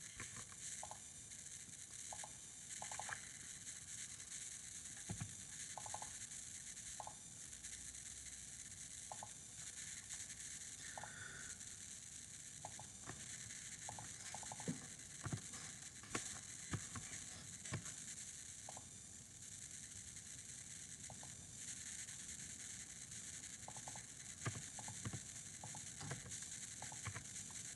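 Faint computer keyboard keystrokes and mouse clicks, short scattered clicks over a steady hiss, as numbers are typed into form fields.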